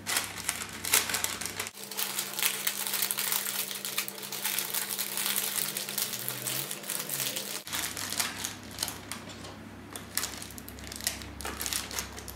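Baking paper crinkling and rustling as it is folded and pinched shut, with many short crackles and light clicks of metal paper clips being pushed onto the folded edge.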